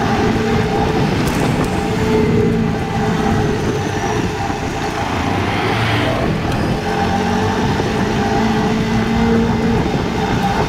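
KTM Duke 250's single-cylinder engine running at a fairly steady pitch while the motorcycle is ridden, with wind noise rushing over it.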